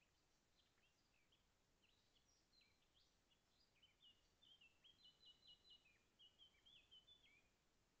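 Faint song of a small bird: scattered short, high chirps that build from about four seconds in into a quick run of repeated notes, about five a second, and stop shortly before the end.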